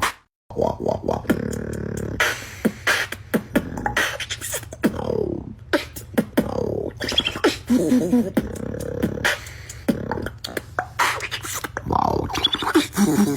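Beatboxing: fast vocal percussion of kicks, snares and clicks over a steady low hummed bass, with gliding voiced sounds woven in. It starts after a brief pause right at the beginning.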